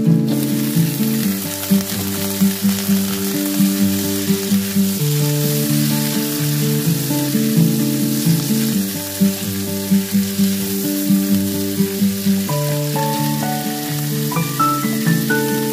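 Napa cabbage stems sizzling in hot oil as they are stir-fried in a wok with carrot and dried shrimp, under louder background music with a simple melody.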